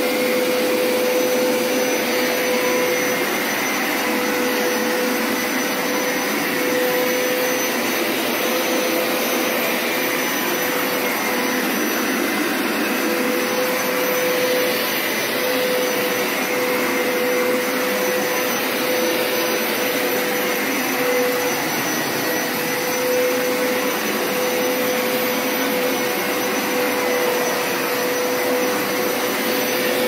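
Hoover Power Scrub Deluxe FH50150 carpet washer running steadily on its wash setting with the spray trigger held. Its motor makes a constant whirring hum with a steady whine.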